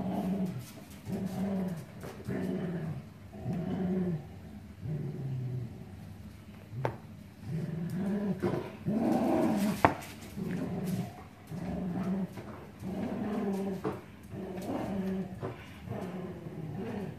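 Rough collie and a smaller long-haired dog growling in play as they tug a plush toy between them, in short bouts about once a second. A single sharp click about ten seconds in.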